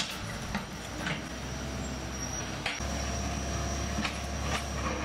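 Case backhoe loader's diesel engine running steadily, its low drone growing heavier a little under three seconds in, with a few sharp knocks from the concrete and timber debris it is clearing.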